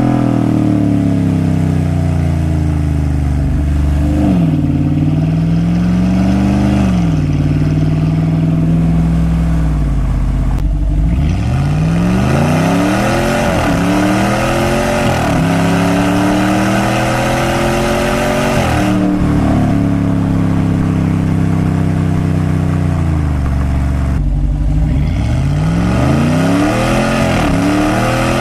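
Ram 1500's 5.7L HEMI V8 with the exhaust cutout open, accelerating hard and backing off. Early on the revs fall, rise and hold. Through the middle they climb in a string of rising sweeps, each cut off by a drop at a gear change. They then run steady, and near the end fall and climb again.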